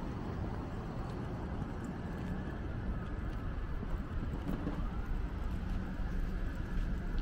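Steady city ambience: a low hum of traffic, with light footsteps on the alley pavement.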